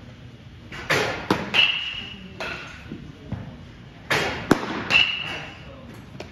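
Baseballs hitting a catcher's glove and gear during a catching drill: two clusters of sharp impacts about three seconds apart, each followed by a short high ringing ping.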